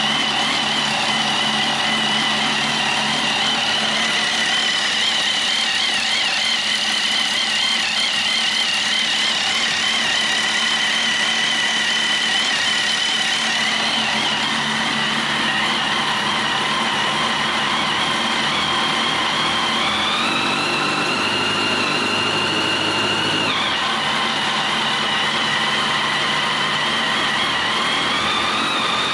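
Kawasaki ZX-10R inline-four engine idling on a test run after a rebuild. About 20 seconds in the revs rise and hold for about three seconds, then drop suddenly back to idle. They rise again near the end.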